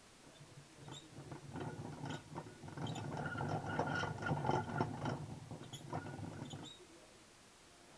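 Metal mesh hamster wheel spinning with two Roborovski dwarf hamsters running in it: a low rumble with a dense patter of small clicks and rattles. It builds up about half a second in, is loudest around the middle, and dies away near the end.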